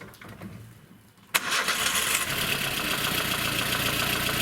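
Lada Kalina's petrol engine starting up about a second in and then running with a loud, harsh high-pitched grinding rattle over the idle, the frightening noise the owner is diagnosing.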